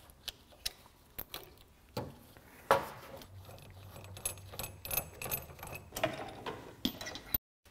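Scattered small metallic clicks and clinks of hand tools prying a retaining ring off a car's CV joint.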